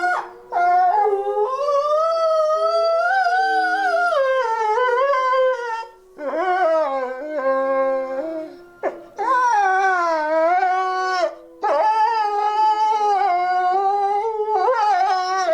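Wolves howling together: long rising and falling howls, with at least two voices at different pitches overlapping, broken by short pauses three times.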